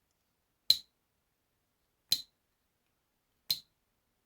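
Blade of a handmade trapper slip-joint pocket knife snapping into place against its backspring, three sharp clicks about a second and a half apart: the knife's "walk and talk".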